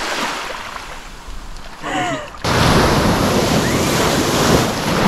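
Sea waves breaking over beach rocks: a loud, steady rush of surf that starts suddenly about halfway through, after a quieter stretch.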